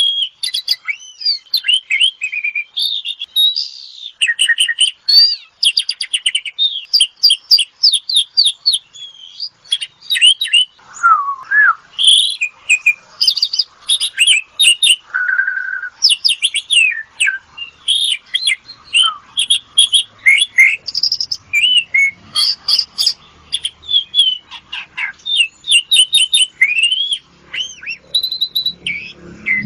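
Asian pied starling (jalak suren) singing a long, unbroken song of rapid chattering notes and squeaky whistles, with a few lower, sliding whistles mixed in.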